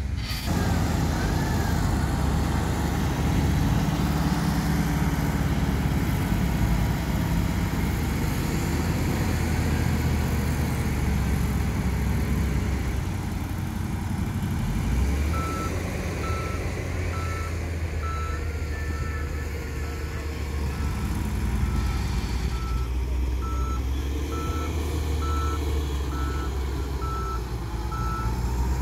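Heavy diesel engine running steadily while a tipper semi-trailer truck's hydraulic ram raises the loaded bed to dump sand. From about halfway, a reversing alarm beeps in a steady repeated pattern.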